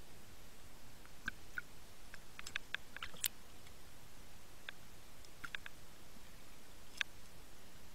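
Underwater sound: a low steady hiss with scattered sharp clicks and crackles, the loudest a little over three seconds in and again about seven seconds in.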